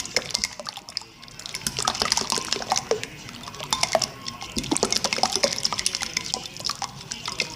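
Wet slime being squished and kneaded by hand, with many quick sticky clicks and pops.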